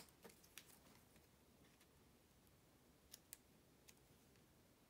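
Near silence, broken by a sharp click at the start and a few faint scattered ticks as small cardstock hearts are handled and pressed onto paper on a tabletop.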